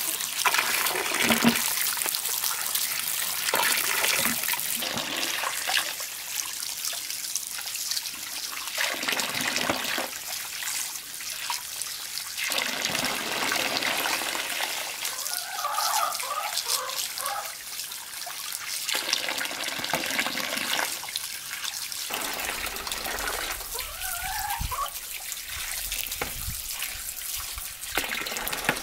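A thin stream of water from a hose pours and splashes steadily into a metal basin of water while hands rub and rinse freshwater mussels in it.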